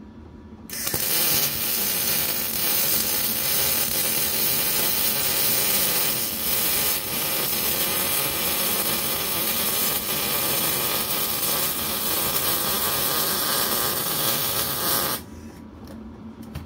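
Electric welding arc from a Hzxvogen welder, sizzling steadily in one continuous bead. It starts about a second in and cuts off suddenly near the end when the trigger is released.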